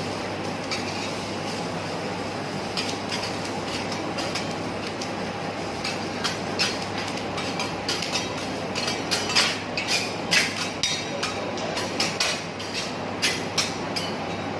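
Metal teppanyaki spatulas clacking and scraping on the steel griddle over a steady sizzling hiss. The clacks come thicker and faster in the second half.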